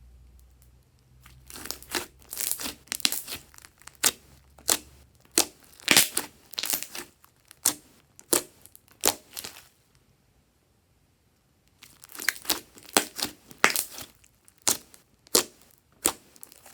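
Glossy slime being squished and stretched by hand, giving runs of sharp wet clicks and pops. One run lasts most of the first ten seconds, then comes a short pause, then a second run.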